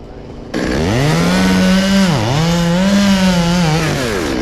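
Two-stroke chainsaw opened to full throttle about half a second in and cutting into very hard Australian pine, its engine pitch holding high and dipping sharply twice.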